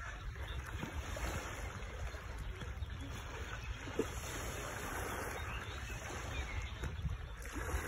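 Sea water washing and lapping: a steady, even hiss of moving water with a low rumble beneath it.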